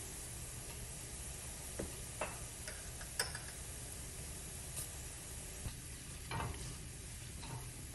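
A tarka of chopped onion and garlic sizzling steadily in oil in a frying pan, with scattered light clicks and taps. Near the end a silicone spatula stirs it, giving a brief busier scraping patch.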